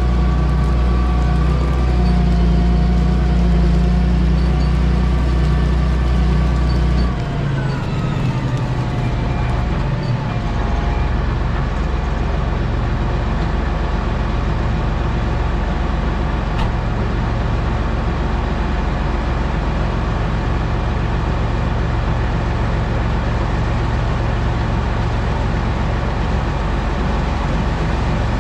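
Heavy farm machinery's diesel engine running steadily under load. About seven seconds in the deep drone drops and its tones glide down, then it settles into an even run.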